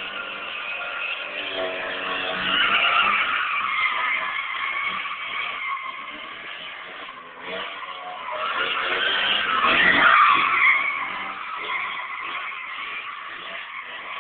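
Mazda Miata drifting: tyres squealing in long skids, loudest about three seconds in and again near ten seconds. Underneath, the engine revs with a bad exhaust leak.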